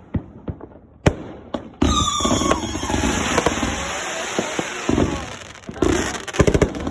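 Fireworks going off: a few sharp separate bangs, then about two seconds in a dense crackling, hissing volley with brief whistles, and a quick string of bangs near the end.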